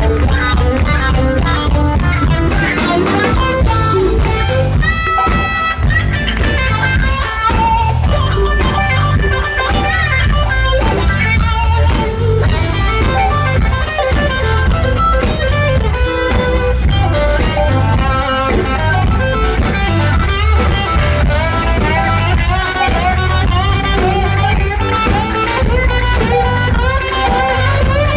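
Live band playing blues-rock: an electric guitar plays a lead line over a drum kit, steady and loud, heard from the audience.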